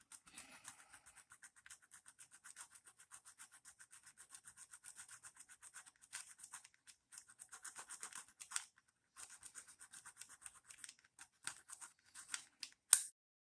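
Point file rasping lightly across an outboard motor's breaker points in quick short strokes, about five a second with two brief pauses, cleaning the contact surfaces flat to cure a misfire. A single sharp click near the end.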